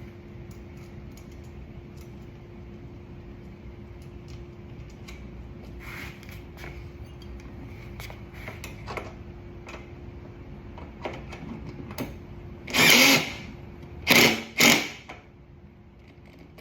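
Cordless drill gun run in three short bursts about two-thirds of the way through, driving a mounting bolt with a 10 mm socket: one burst of about half a second, then two quicker ones. Before them, faint clicks of parts being handled over a steady low hum.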